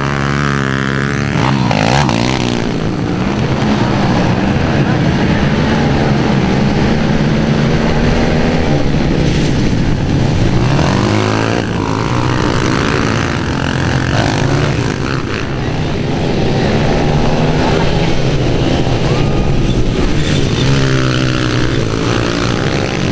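Pit bike and small dirt bike engines racing past one after another, revving up and down so the pitch rises and falls as each bike goes by.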